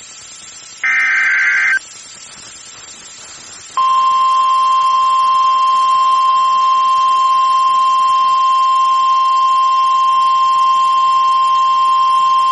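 Emergency Alert System broadcast: one short screeching data burst of the SAME header about a second in, then after a pause of about two seconds a steady single-pitch 1050 Hz NWS warning alarm tone, held for about nine seconds. The tone is the attention signal announcing a tornado warning.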